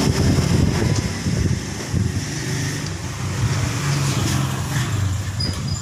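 A motor vehicle engine running, a low steady hum with a fast pulsing beat.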